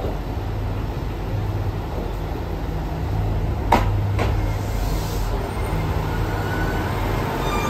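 Diesel engine of a KiHa 200 'Nanohana' railcar drumming steadily as the train rolls slowly into the platform. Two sharp clacks come about four seconds in.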